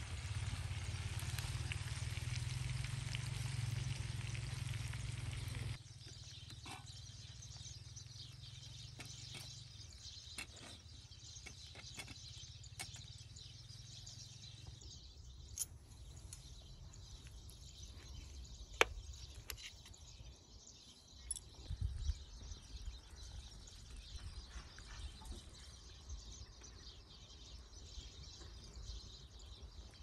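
Quiet outdoor ambience. A steady hiss with a low rumble cuts off abruptly about six seconds in, leaving a quieter background with scattered light clicks and ticks.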